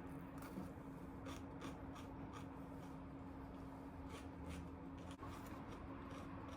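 Faint, irregular light clicks and small scraping or handling noises over a steady low hum.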